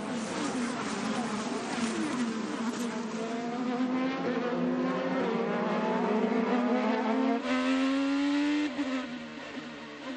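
IndyCar's twin-turbo V6 racing engine at full throttle, its pitch climbing steadily through the revs and dropping sharply near the end at a gear change.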